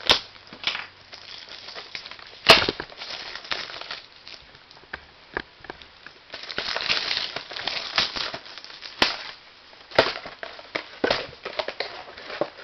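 Plastic wrapping on a box of trading card packs being torn and crinkled, with many sharp snaps and clicks. The loudest snap comes about two and a half seconds in, and a longer run of crinkling follows from about six to nine seconds.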